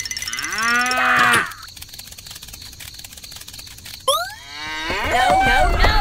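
A cow mooing once, one drawn-out call lasting just over a second. Just after four seconds there is a quick rising whistle, and busy, chattering voices start near the end.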